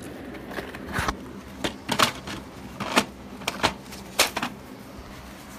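Irregular sharp clicks and knocks of something being handled and moved, about nine of them, stopping about four and a half seconds in.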